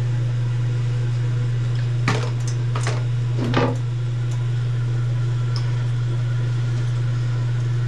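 A steady low hum, with three short knocks or clatters about two to four seconds in.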